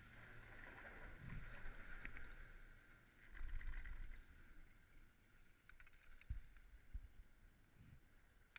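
Chairlift chair pulling out of the bottom terminal: a faint steady machinery hum that fades after about four seconds as the chair climbs away, with low rumbles and two dull knocks from the moving chair.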